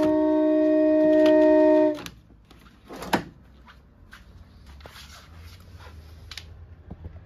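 Hand-cranked 27-note organ with wooden pipes holding a chord, which stops abruptly about two seconds in. Then comes a single knock and a few faint clicks.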